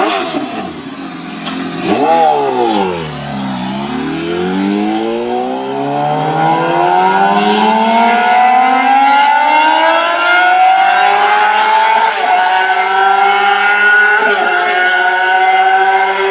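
Yamaha R6 sport bike's inline-four engine revving briefly and dropping back, then pulling hard with the pitch climbing steadily for several seconds before levelling off at high revs, with two brief dips near the end.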